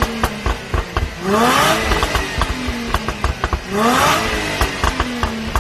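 2015 Range Rover Sport V6 with a Stage 1 tune, blipped twice in quick revs from idle. As the revs fall after each blip, the exhaust gives soft pops and crackles on the overrun.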